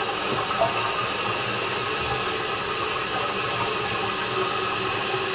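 Water hissing steadily through a toilet's shut-off valve and fill valve as the tank refills, the supply valve opened only partway.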